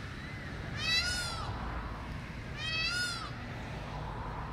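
Peacock calling: two short, wailing calls about two seconds apart, each rising then falling in pitch.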